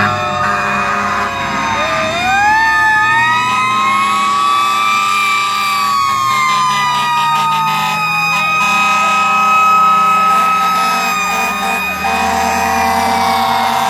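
Several fire truck sirens sounding at once, their overlapping wails rising and falling, with a fast-pulsing siren tone briefly around the middle, as fire trucks drive past one after another. Truck engines run beneath.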